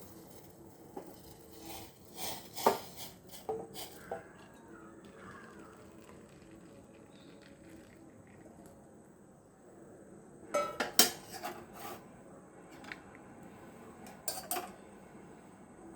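Metal kitchen utensils and pots clinking and clattering in three short bunches of knocks, the busiest between one and four seconds in and around ten to twelve seconds, with a last few clinks near the end.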